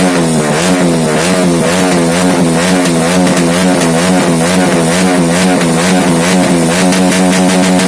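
A vehicle engine held at high revs, running loud and continuous with a pitch that wavers up and down a few times a second.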